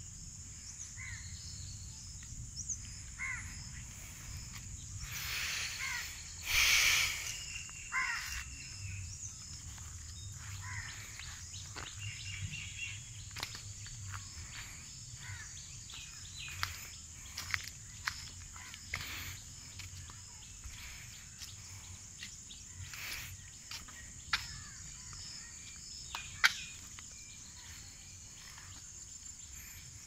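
Rural outdoor ambience: a steady high-pitched insect drone with scattered bird calls, including a loud harsh crow caw about six seconds in, over a low rumble of wind on the microphone. Occasional sharp clicks and taps come through in the second half.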